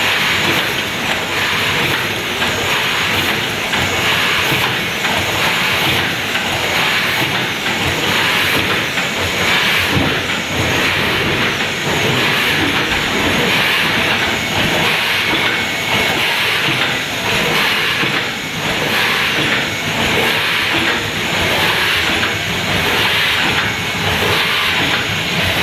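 Automatic tube-filling machine running, with a continuous mechanical clatter and hissing compressed air.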